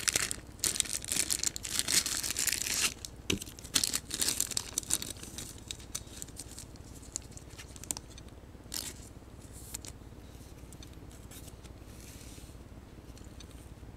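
A trading card pack's wrapper being torn open and crinkled, with cards rustling and sliding against each other. The rustling is dense for the first few seconds, thins to scattered light ticks and taps, and dies away after about ten seconds.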